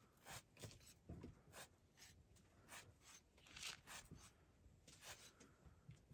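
Faint, irregular rasping strokes of a curved iron sickle cutting through a sheep's wool, about one or two short strokes a second.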